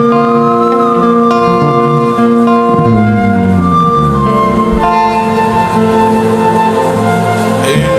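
Slow instrumental worship music: sustained chords with guitar, shifting harmony every few seconds.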